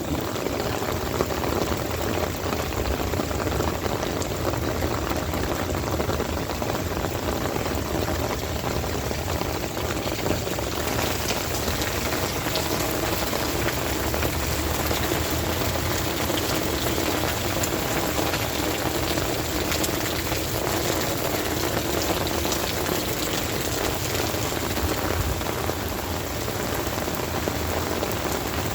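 Heavy rain falling steadily: a dense, even hiss with individual drops ticking through it.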